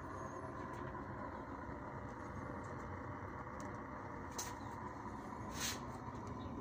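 Gravity-fed pellet burner on a Viadrus boiler running: a steady rushing noise from the burning unit, with two brief sharp ticks in the second half.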